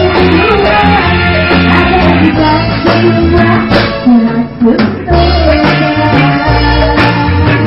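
A band playing a song with singing, over a steady bass line and drums.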